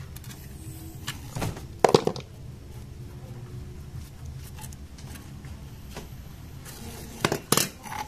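Sharp metallic clicks and clinks as a refrigerant can tap, charging hose fittings and a manifold gauge valve are handled: a couple of knocks about two seconds in and two more near the end, over a steady low hum.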